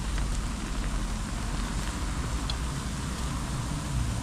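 Meat sizzling and broth simmering on a mookata grill-hotpot pan, a steady hiss over a low rumble.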